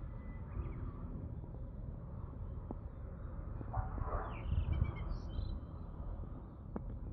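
Outdoor ambience: an uneven low rumble, with a few short bird chirps about halfway through.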